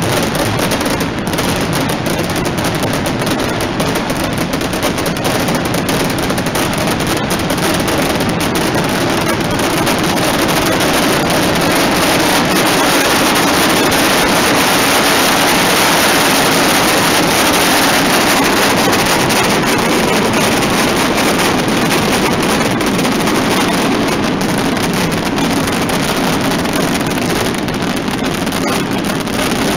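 Mascletà firecrackers going off so densely that the bangs merge into one continuous din, growing louder through the middle: the ground-level 'terremoto' barrage of the finale.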